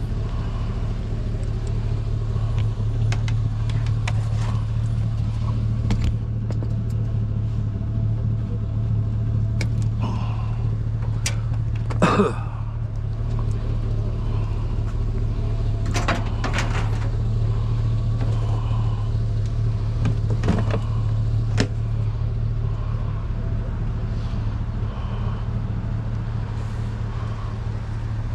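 Chevrolet pickup truck's engine idling steadily, with a few sharp knocks and clanks of leather recliners being handled, one louder clatter partway through.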